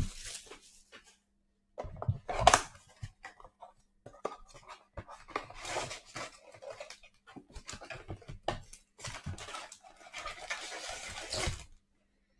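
Sealed trading-card packs and cardboard boxes being handled: foil wrappers crinkling and rustling with light taps and knocks in irregular bursts, the sharpest knock about two and a half seconds in.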